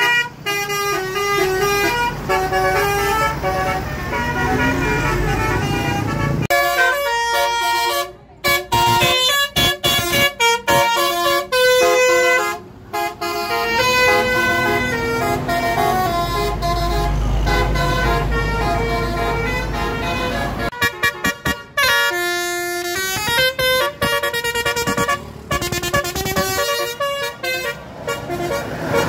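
Indonesian bus 'telolet' musical horns playing tunes: several horn notes sounding together and stepping from pitch to pitch, with a few short breaks between phrases. A low engine rumble runs under it for a few seconds past the middle.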